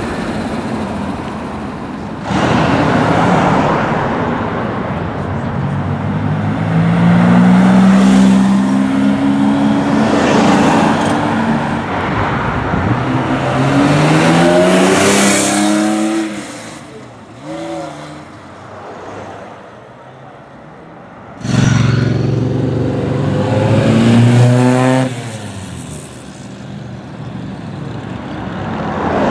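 Performance cars pulling away and accelerating hard, their engines revving up with a rising pitch several times in succession. A quieter spell of traffic noise comes near the middle, then a sudden loud burst as another car sets off and revs up.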